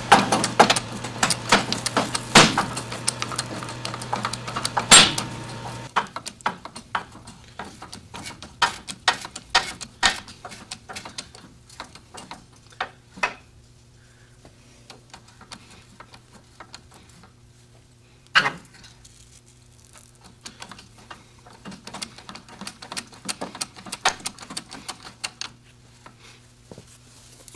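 Hand-pumped porta-power hydraulic ram and the chain tied to it, working to pull a bowed truck frame crossmember back square: rapid metallic clicking and chain rattling for the first few seconds, then scattered clicks and clanks, with one sharp clank in the middle.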